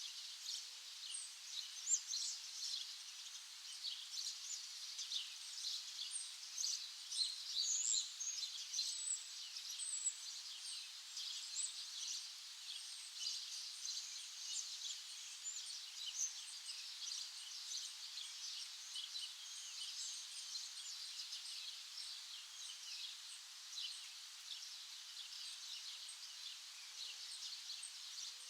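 A dense chorus of many small birds chirping, rapid short high notes overlapping continuously.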